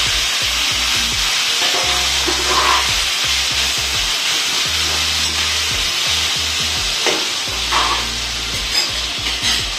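Chopped onions, tomatoes and capsicum sizzling steadily in hot ghee in a steel kadhai as they are sautéed. A steel spatula stirs through them, with a few sharp scrapes and taps against the pan in the second half.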